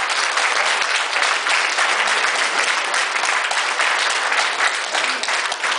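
Audience applauding steadily, many hands clapping at once, greeting a finalist whose name has just been called.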